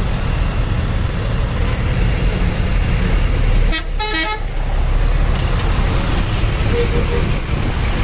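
Bus diesel engines running close by, loud and steady, with a short burst of a multi-tone Basuri telolet horn about four seconds in.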